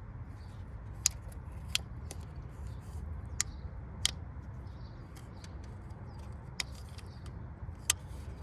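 About six sharp clicks and taps of small parts being handled, irregularly spaced, over a steady low rumble.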